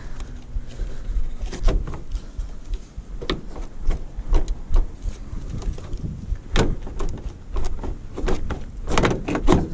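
Plastic front grille of a Ford Focus Mk2 being tugged and forced against its retaining clips, giving a string of irregular plastic clicks, creaks and knocks.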